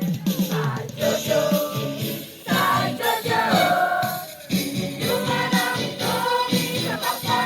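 Choir singing held, sustained phrases, broken by short breaks about two and a half and four and a half seconds in.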